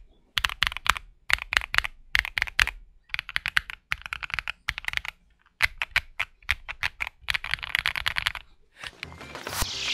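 Typing on a gasket-mount 65% mechanical keyboard (Origin 65A) fitted with stock, unlubed Akko V3 Cream Yellow linear switches: runs of clacky keystrokes broken by short pauses. Near the end a rising whoosh swells in.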